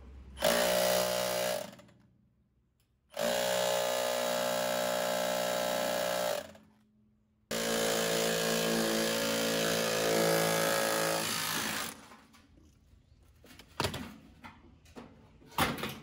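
Cordless rotary hammer in hammer-only mode, driving a rusted blower motor shaft out of a blower wheel hub. It runs in three bursts: a short one about half a second in, then two longer runs of three to four seconds each. A couple of faint knocks come near the end.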